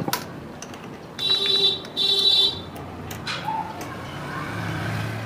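Two short beeps of an electric vehicle horn, back to back about a second in, each lasting about half a second.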